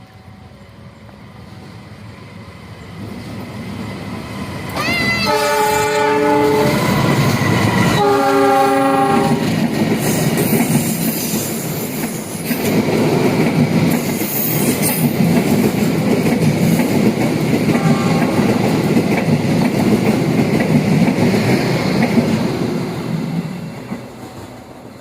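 A train approaching and passing close by: its horn sounds twice, about five and eight seconds in, with a short third blast later, then the wheels clatter loudly on the rails as the cars go past, dying away near the end.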